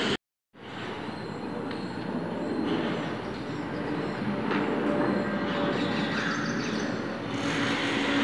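Jet airliner flying low overhead, its engines making a steady rushing noise with a faint steady whine. The sound drops out briefly just after the start, then comes back.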